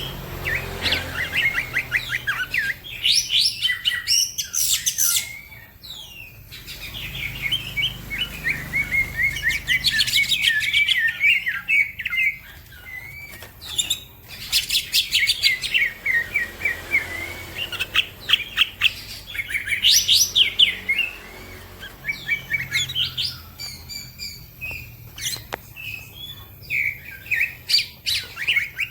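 Green leafbird (cucak ijo) singing a varied song of rapid chirps, trills and chattering phrases, in bursts separated by brief pauses.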